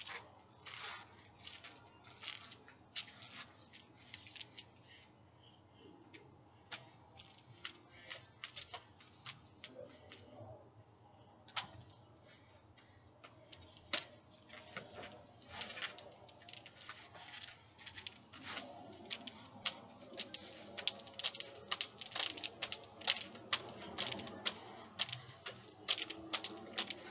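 Irregular light clicks and taps of a plastic LED hula hoop knocking against hands and body as it is spun and handled, sparser in the first half and coming thicker and louder toward the end.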